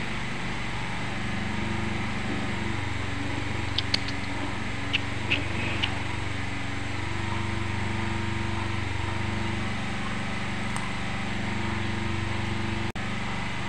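Steady motor hum with several low tones, like a fan or other machine running, and a few brief high chirps between about four and six seconds in.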